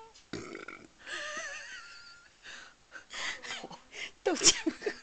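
A one-month-old baby snoring: short noisy breaths with a high, wavering whistle about a second in, then several quick breaths, and a louder burst near the end.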